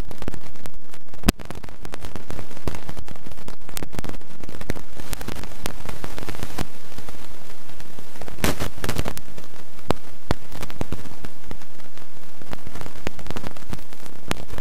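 Wind buffeting the microphone of a camera on a motorcycle moving at speed: a loud, dense crackling hiss with sharp pops scattered through it, and a cluster of louder pops about eight seconds in.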